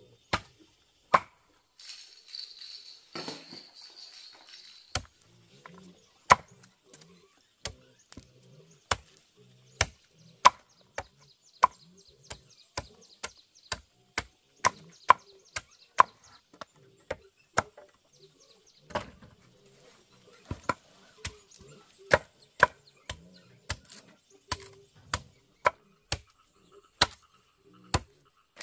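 Steady chopping with a blade, one sharp stroke about every two-thirds of a second. A rustling hiss joins in about two seconds in and dies away about five seconds in.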